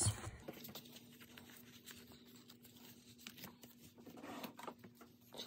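Faint rustling and light scraping of paper sticker sheets and a leather planner being handled on a desk, a little busier about four seconds in, over a faint steady hum.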